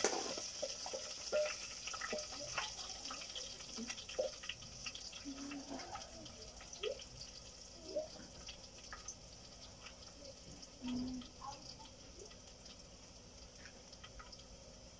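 Onions frying in oil in a pot over a wood fire: a faint sizzle, strongest at the start and thinning out, with many scattered small pops and crackles. A couple of short low sounds come in between, the longest about two-thirds of the way through.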